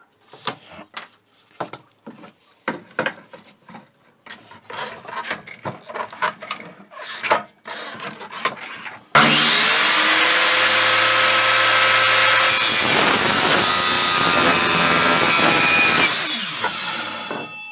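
Scattered tapping, clicking and scraping as parts are handled. Then, about nine seconds in, a handheld power tool spins up with a rising whine and runs loudly and steadily for about seven seconds. It is switched off and winds down.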